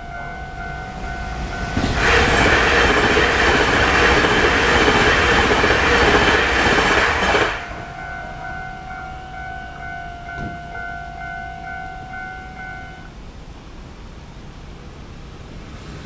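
A level-crossing warning bell rings steadily while a TRA TEMU2000 Puyuma Express tilting electric train passes at speed. The train is a loud rush of wheel and air noise for about five seconds that cuts off sharply as the last car clears. The bell keeps ringing after the train has gone and stops about thirteen seconds in.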